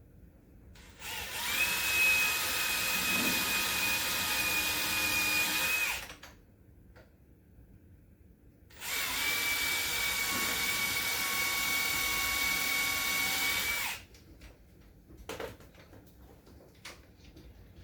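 Power drill running at a steady speed in two long runs of about five seconds each, a steady whine, followed by a few light clicks and knocks.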